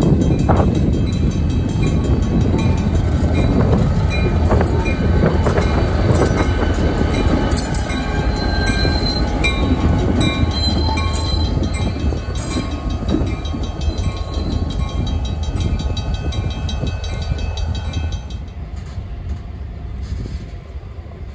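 EMD SD24 locomotive's turbocharged V16 diesel rumbling as it passes close by at low speed, with wheels clicking over rail joints and brief high squeals. The rumble fades as the train of cabooses rolls away near the end.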